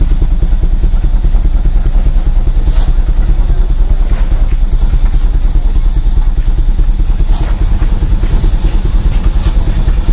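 Russell steam traction engine running, its engine beating fast and evenly, about seven beats a second.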